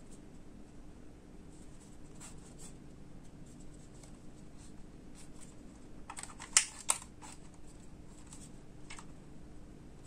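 Plastic handling clicks and rustles from a DJI Mini 2 remote controller, with two sharp clicks close together about six and a half seconds in as its spring-loaded phone holder is pulled open.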